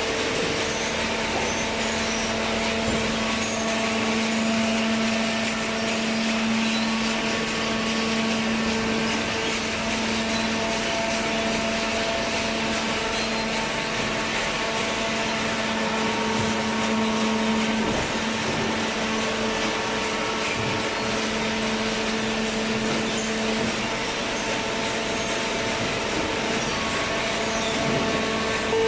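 Hydraulic cardboard baler running: a steady machine hum and hiss from its motor and pump, with a low tone that stops about 24 seconds in.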